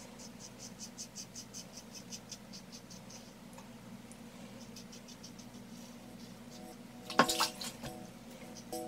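Van Der Hagen double-edge safety razor scraping through lathered stubble in quick short strokes, about five or six a second, for the first few seconds as the very sharp blade cuts the hairs. About seven seconds in comes a louder burst with a few short tones.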